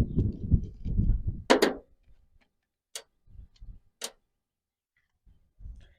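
Hand work on a steering wheel's plastic trim with a screwdriver: low rubbing and knocking of the parts being handled for the first couple of seconds, then two sharp clicks, followed by a few scattered single clicks and soft knocks.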